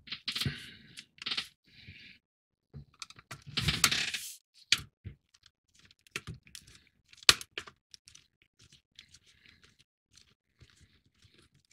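Small screws being driven by hand into a plastic model's skeleton frame: scattered clicks, scrapes and rustles of the screwdriver and plastic parts, with a sharp click about seven seconds in.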